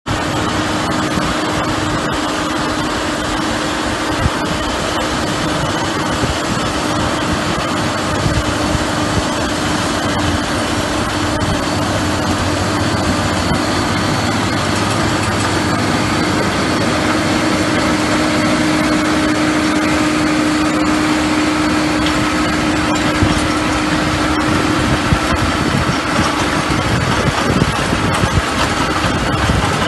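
John Deere tractor's engine running steadily under load, driving a PTO-driven Gramegna spading machine with a seed drill. A steady drone throughout, with many small clicks over it.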